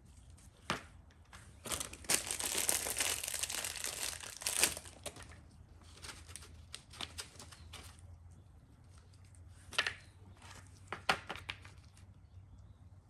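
Plastic packaging crinkling and rustling for about three seconds, then a few sharp clicks of small parts being handled, over a faint steady low hum.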